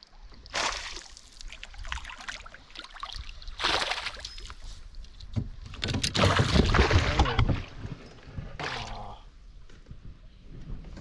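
Hooked pike splashing at the surface beside a small fishing boat as it is played in and landed. The splashing comes in several surges, the loudest about six to seven seconds in, with a few knocks against the boat.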